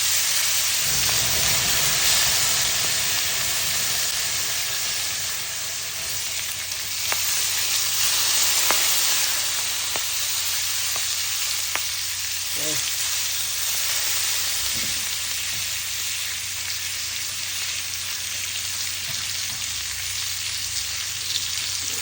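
Salmon sizzling on a hot grill: a steady hiss, with a few faint ticks and pops about midway through.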